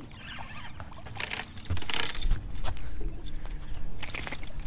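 Metallic jangling of a popping-cork rig's beads and wire as a hooked fish shakes and is reeled to the boat, starting about a second in.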